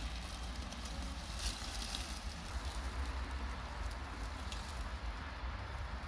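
Dry leaf litter crackling and rustling steadily under a low rumble, with no clear motor whine.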